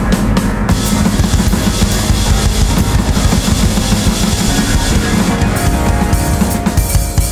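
Noise/free-improvisation music: an electronic drum kit (Roland TD-17) played in fast, dense hits over a thick wall of synth noise and low sustained keyboard tones.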